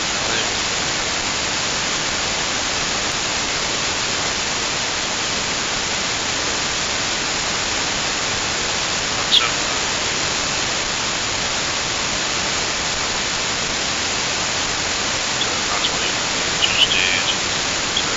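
Steady static hiss from an RTL2832U/R820T2 SDR dongle receiving AM on an air-band frequency with no transmission on the channel. A few short faint squeaks come about nine seconds in and again near the end.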